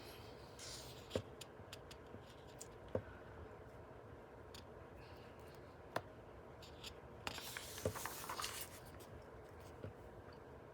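Pages of a book being turned and handled: a few light clicks and taps, and a longer paper swish about seven to eight and a half seconds in.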